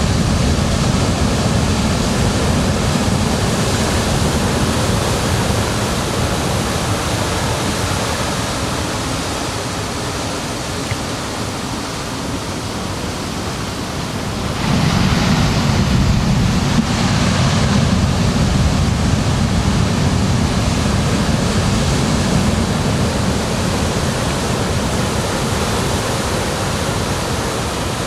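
Ocean waves washing onto a beach as a continuous roar of surf; a fresh wave breaks about halfway through, and the sound then slowly eases.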